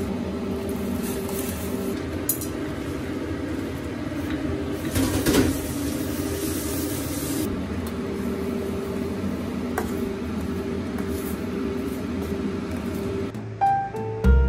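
Steady hum of a small motor running, with a louder hiss for about two seconds about a third of the way through.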